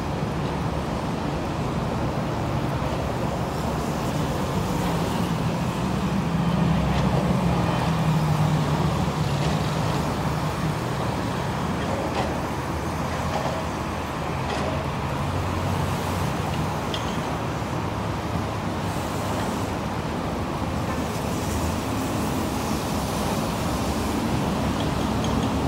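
Steady road traffic noise with engines running. One engine's hum grows louder and drops a little in pitch about a quarter of the way in, then fades back into the traffic.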